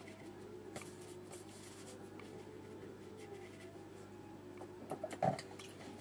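Faint scratching and dabbing of a watercolour brush's bristles on wet paper over a low steady room hum, with a brief soft bump about five seconds in.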